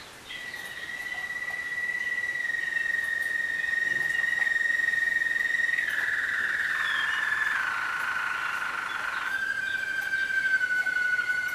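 Waterslager (Malinois) song canaries singing: a long, steady whistle-like note that steps down in pitch about six seconds in, with a fuller, rolling passage from about six to nine seconds, then a lower held note with a second voice above it near the end.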